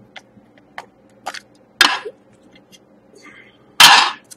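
Hands handling a clear hard-plastic card case on a tabletop, giving a series of sharp plastic clicks and taps. A louder, longer clatter comes near the end.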